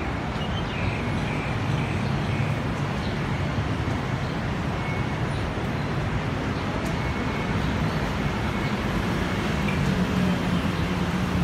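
Continuous city road traffic: many vehicles running at once, making a steady low rumble with no single event standing out.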